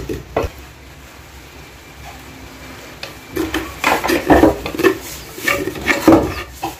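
A spoon scraping and knocking inside a mortar as pounded oyster nut paste is scooped out, a run of irregular scrapes starting about three seconds in.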